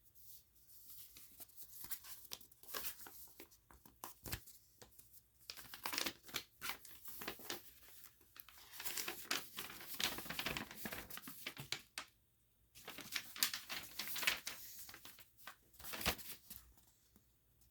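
Paper instruction manual being handled, its sheets rustling and crinkling in irregular bursts, with a short lull about twelve seconds in.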